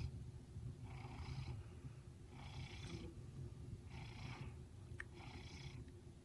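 Maine Coon cat purring very gently: a low steady rumble, with a soft hiss coming back about every second and a half as it breathes.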